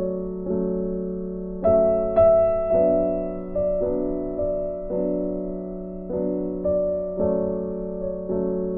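Background piano music, with notes and chords struck about every half second to a second, each fading before the next.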